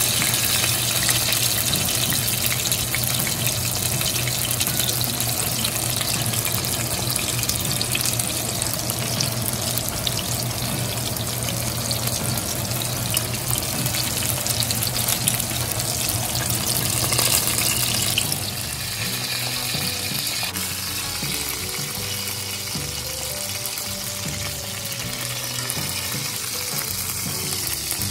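Breaded chicken breasts shallow-frying in hot oil in a cast-iron skillet: a steady, dense crackling sizzle that gets somewhat quieter about eighteen seconds in.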